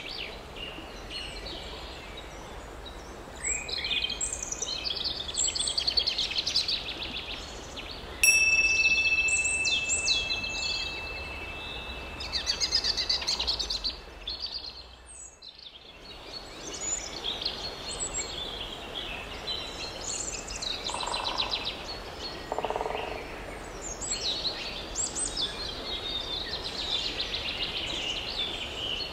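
Many small birds singing and chirping over a steady outdoor background. About eight seconds in, a bell-like chime is struck and rings on one clear tone for about six seconds.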